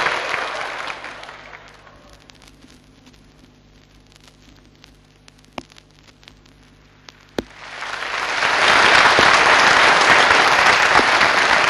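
Audience applause. The sound fades out at the start, leaving a few seconds of low hum with a couple of clicks, then applause swells up loud about eight seconds in.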